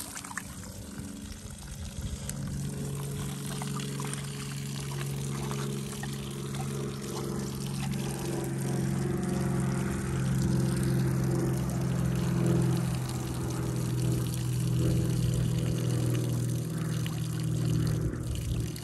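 Water pouring steadily, with a low humming tone that grows stronger a couple of seconds in and breaks off at the very end.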